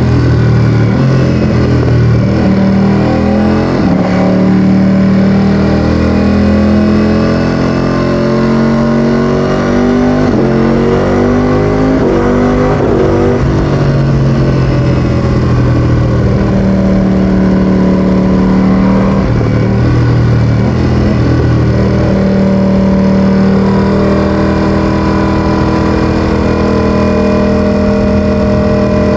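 Ducati Streetfighter V4S's 1103 cc Desmosedici Stradale V4 engine running loud through an Akrapovic exhaust. Its revs rise and fall several times, most around the middle, with long stretches held at steady revs.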